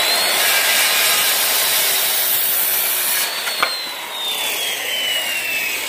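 Corded circular saw cutting through a wooden board, its motor whining over the cutting noise. About three seconds in the cut finishes, followed by a short click, and the blade winds down with a falling whine.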